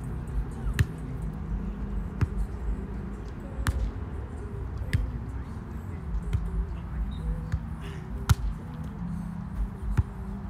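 A volleyball being played back and forth: sharp slaps of hands and arms on the ball, about six of them a second or two apart, over a low outdoor rumble.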